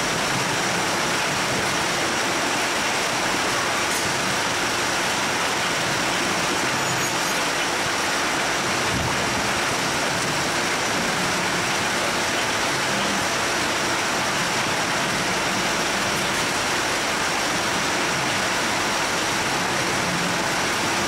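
Vizier Systems citrus sizer running: steady noise from its roller-chain conveyors, with a faint steady high whine over it.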